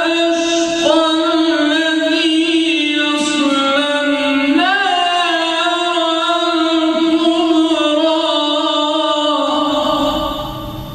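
A man's solo unaccompanied voice reciting the Qur'an in a melodic, ornamented chant: long held notes with wavering turns and slides between pitches. The voice ends near the end, leaving quieter room sound.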